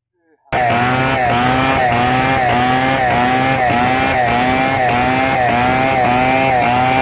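Large 070 two-stroke chainsaw running at full throttle while ripping lengthwise through a squared hardwood beam, its pitch dipping slightly about twice a second as the chain loads in the cut. The sound starts suddenly about half a second in.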